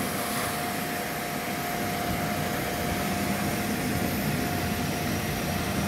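Electric blower fan of an inflatable slide running steadily, a constant rushing drone with a steady whine in it.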